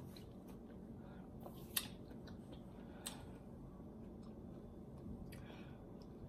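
Faint close-up chewing of cooked string beans with the mouth closed: soft wet mouth sounds with a few small clicks, two of them sharper, about two and three seconds in.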